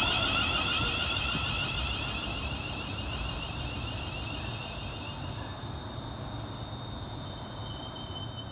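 Class 350 Desiro electric multiple unit pulling away, its traction motors giving a high warbling whine that fades as the train leaves.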